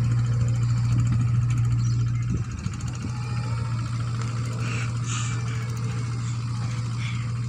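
Mini excavator's diesel engine running with a steady low drone, dropping slightly in level about two and a half seconds in.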